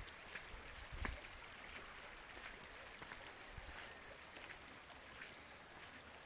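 Faint steady rush of a small creek running, with a few light footsteps on a gravel road.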